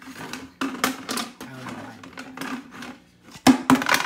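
Plastic bucket being handled and turned, giving irregular knocks, clicks and rattles, with a loud cluster of knocks near the end, over a steady low hum.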